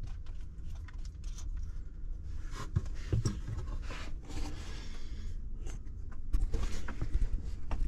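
Hands and a wrench working on cables and terminal connections at a battery bank: scattered small scrapes, rubs and clicks of metal and wire being handled, over a steady low rumble.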